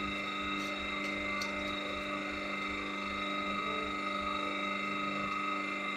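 Hydraulic paper-plate pressing machine running steadily, a constant hum with several fixed tones, with a couple of faint ticks early on.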